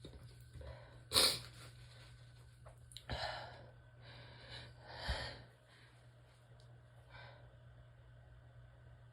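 A person sneezing several times: a sharp, loud sneeze about a second in, then quieter bursts around three and five seconds in, with breaths between.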